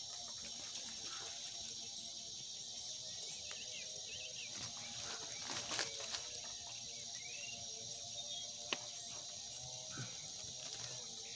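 Steady chorus of insects such as crickets, a continuous high-pitched buzz, with a few short rising chirps and one sharp click about nine seconds in.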